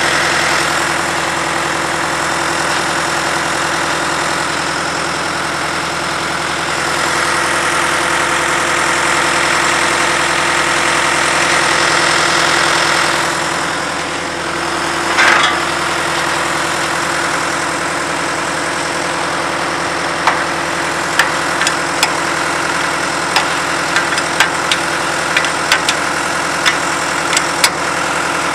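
Engine of a 22W cable-tool drill rig running steadily at idle. There is a short burst of noise about halfway through, and a string of sharp clicks over the engine in the last third.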